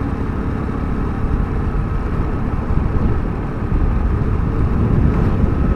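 Motorcycle under way on an open road, heard from the rider's seat: a steady low rumble of engine and wind noise.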